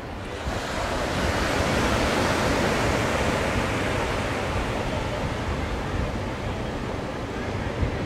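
Ocean surf: a wave breaking and washing up the beach, a rush that swells about half a second in and then slowly eases off.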